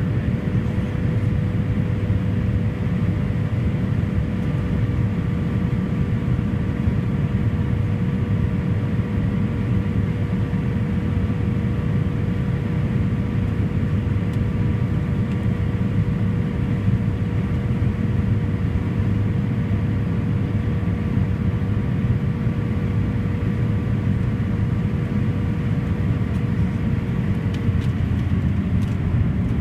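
Cabin noise of a Fokker 50 on approach: the steady drone of its twin turboprop engines and six-bladed propellers, with a steady whine that dips slightly in pitch near the end.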